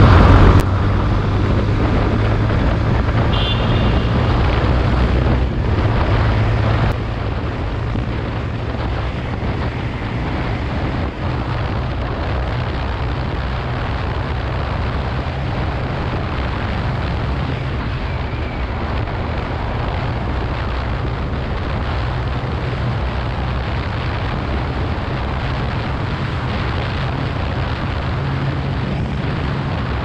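Bajaj Pulsar 180F's single-cylinder engine running steadily at road speed, under wind rushing over the microphone. The overall level drops a little about seven seconds in.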